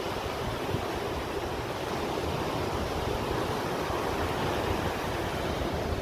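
Rough surf breaking on a sandy beach: a steady rush of waves, with wind rumbling on the microphone.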